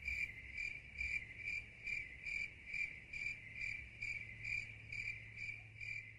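Single cricket chirping in a steady, even rhythm of about two chirps a second over a faint low hum: the night-time ambience of a sleeping scene.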